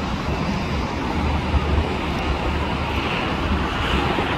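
Steady jet engine noise from a four-engine Boeing 747 taxiing across the runway, heard from a distance over a low rumble.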